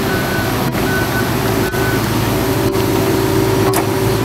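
Diesel engine of a wheeled excavator running steadily. A backup alarm beeps about once a second for the first two seconds, then stops.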